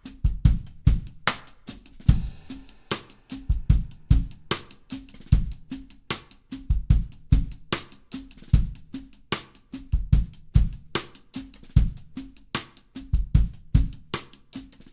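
Drum kit playing a steady groove: bass drum, hi-hat and a cross-stick clicked on the snare drum's rim, the stick laid across the head with the back fingers muting it for a crisp, short sound.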